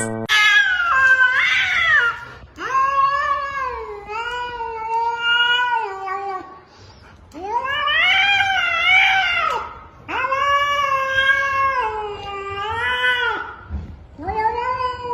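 Domestic cat yowling in a run of about five long, drawn-out meows, each bending up and down in pitch, with short pauses between them.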